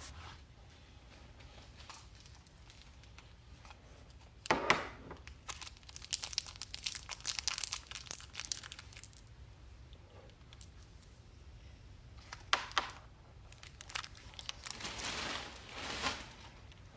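Packaging being torn open and crumpled in irregular bursts of tearing and crinkling. The sharpest tear comes about four and a half seconds in, with a few short knocks a little past the middle.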